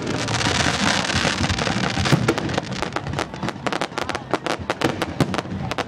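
Fireworks bursting at close range: a dense hissing fizz at first, then rapid crackling, many sharp cracks a second.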